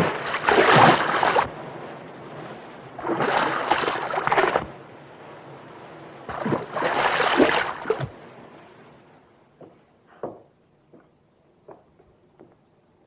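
Seawater thrown up by depth-charge blasts rushing and splashing back down, in three surges about three seconds apart, each dying away. After that the sea goes quiet apart from a few faint ticks.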